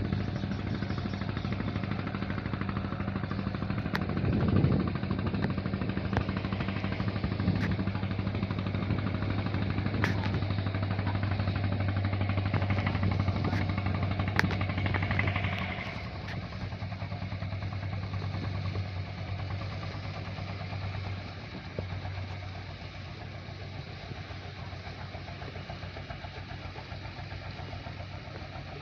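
Wooden pompong boat's inboard engine running steadily with a low, even hum as the boat motors past. The sound drops quieter about halfway through.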